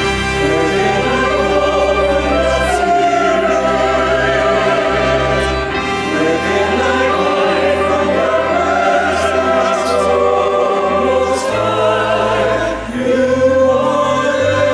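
Choir singing a slow hymn with instrumental accompaniment and sustained bass notes.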